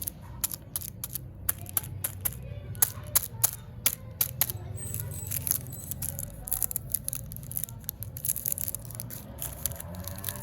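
Candy packaging being handled and unwrapped by hand: a dense, irregular stream of sharp plastic clicks and crinkles.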